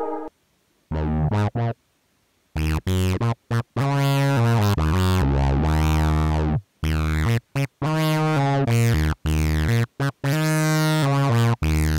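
Synthesizer chords from the Equator soft synth played on a ROLI Seaboard Rise: after two short notes in near silence, short stabbed chords over a deep bass follow one another with brief gaps, each opening with a bright sweep that falls away.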